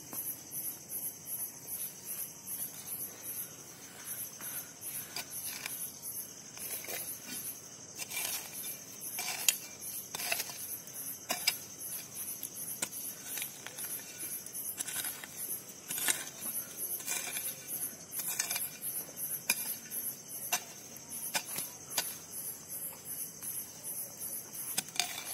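Crickets chirping steadily in a fast, even pulse, with irregular strikes and scrapes of a hoe chopping and pulling dirt to fill a grave, starting about five seconds in.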